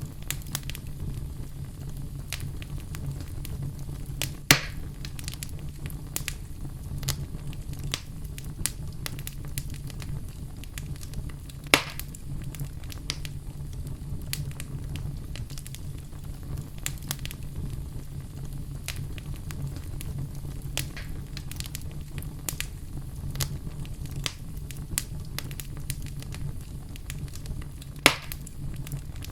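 Wood fire burning in a fireplace: a steady low sound of the flames with constant small crackles, and three sharp, louder pops, one about four seconds in, one about twelve seconds in and one near the end.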